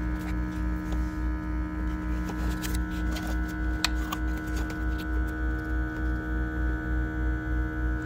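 A steady machine hum with a low throb pulsing about four times a second, and a single light click a little before the middle.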